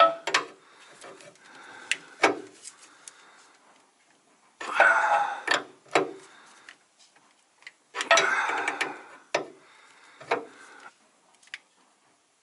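Wrench tightening the compression nut on a truck's air-line fitting: bursts of metal clicking and scraping, several times over, with quiet gaps between.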